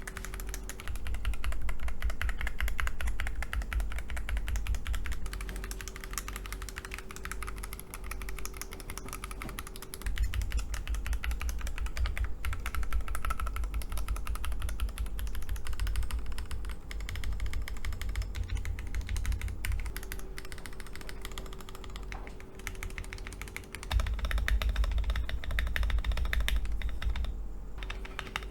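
Typing test on an Akko ACR Pro 68 gasket-mount, hot-swap mechanical keyboard fitted with a plastic plate and a tape mod: a fast, continuous run of keystrokes. The typing comes in heavier stretches with a deep thock under each key, broken by lighter passages.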